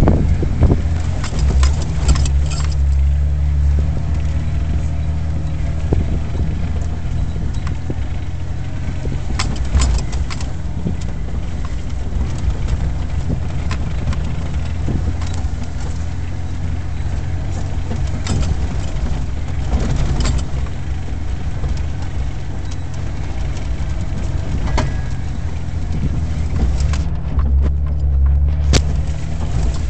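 Jeep Wrangler engine running at low speed on a rough dirt track, heard from inside the cabin, its hum swelling and easing, with occasional short knocks and rattles from the vehicle over bumps.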